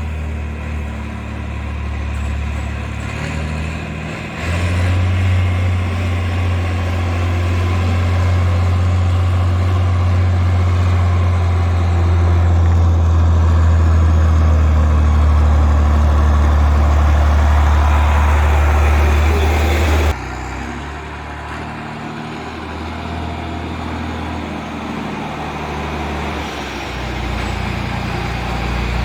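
Tractor engine running steadily. It gets louder about four seconds in, then drops back abruptly about two-thirds of the way through and keeps running more quietly.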